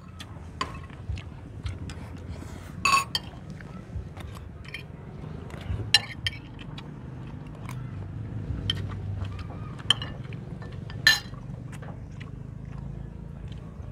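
Spoons clinking and scraping against ceramic bowls and plates during a meal, with many light clicks and a few louder sharp clinks about three, six, ten and eleven seconds in, over a low steady background hum.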